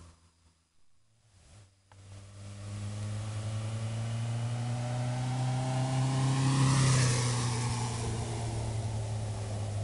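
1981 Yamaha Seca 550's air-cooled inline-four engine as the motorcycle approaches and rides past at a steady throttle. The sound comes in about two seconds in, grows louder, is loudest about seven seconds in, and drops in pitch as the bike goes by.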